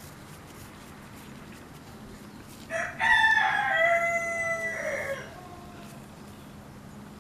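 A rooster crows once, about three seconds in: a single call of about two and a half seconds that drops in pitch at the end. A steady low hum runs underneath.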